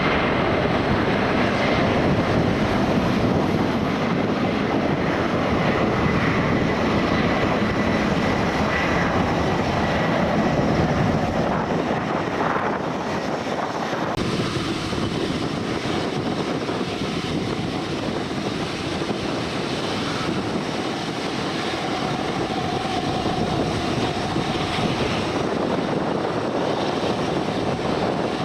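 Aircraft engine noise, a steady dense rush with a faint high whine over the first third, easing slightly about halfway through.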